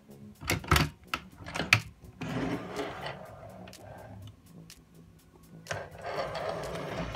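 Teak locker door on a sailboat opened by its push-button latch: a few sharp clicks as the catch releases, then rubbing and scraping of the wooden door and its contents about two to four seconds in and again near the end.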